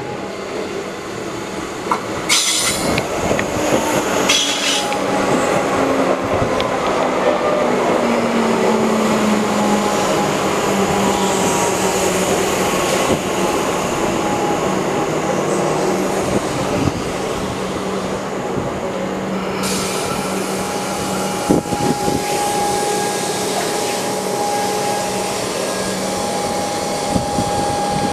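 Comeng electric multiple unit running into the platform: wheels rumble on the rails, with two brief high squeals early on, and the traction motor whine falls in pitch as the train brakes. In the second half a steady electrical hum holds.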